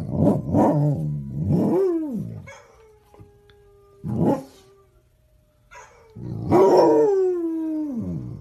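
Dog howling: a run of short howls at the start, a brief yelp about four seconds in, and one long howl that falls in pitch near the end.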